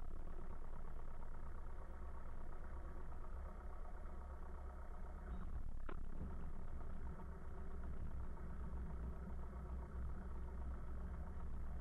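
Piper Cherokee Warrior's four-cylinder Lycoming engine running steadily at low power through the landing, heard in the cockpit. A brief click about six seconds in.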